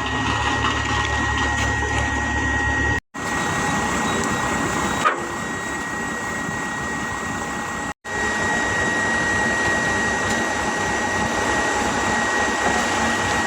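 Road-repair machinery running steadily: a continuous mechanical noise with a constant high whine. Two brief dropouts, about three and eight seconds in, break it.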